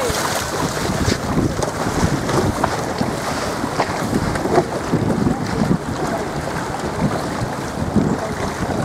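Wind noise on the microphone over the rush and splash of choppy water against a small boat's hull.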